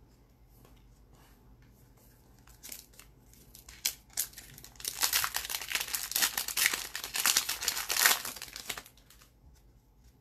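Crinkly wrapper of an O-Pee-Chee hockey card pack being torn open and handled: a few light rustles, then about four seconds of loud, dense crackling.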